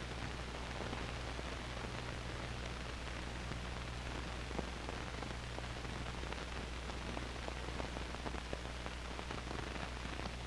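Noise of a 16mm film's optical soundtrack with no programme sound yet: a steady hiss over a low hum, with scattered clicks and crackles.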